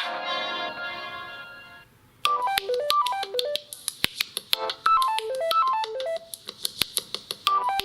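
Samsung Galaxy M01 stock ringtones. One ringtone's held notes fade out over the first two seconds, and after a brief pause another begins: quick runs of falling notes repeated over sharp clicking beats.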